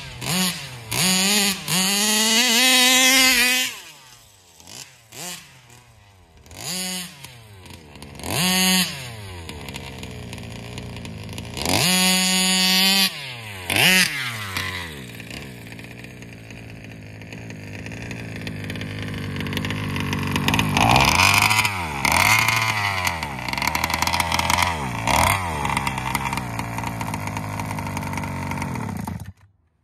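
Meyer-ported Rovan 32cc two-stroke engine with a Taylor RC side pipe, revving hard in repeated throttle bursts that rise and fall in pitch, then running at lower speed with short rev blips while its Roostertail 990 carburetor's low-speed needle is adjusted; the owner judges the low side too rich. The sound cuts off abruptly at the very end.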